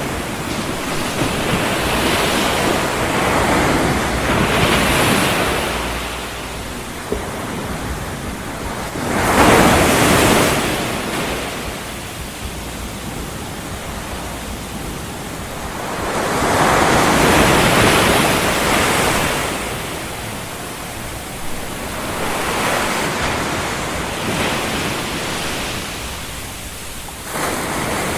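Continuous rushing white noise that swells and ebbs like surf washing in, with the strongest surges about ten and eighteen seconds in.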